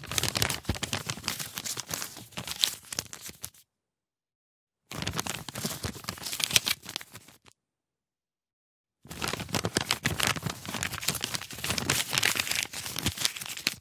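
Thin paper leaflet being unfolded and handled, crackling and rustling in three separate bouts of a few seconds each, with dead silence between them.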